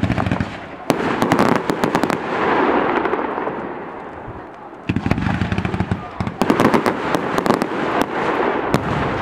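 Fireworks display: two volleys of rapid sharp bangs from aerial shells, the first about a second in and the second about five seconds in, with crackling in between.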